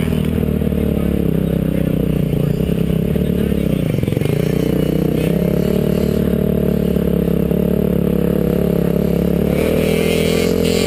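Motocross bike's engine heard close up from a helmet-mounted camera, running at a low, steady speed; the revs drop and pick back up about four seconds in.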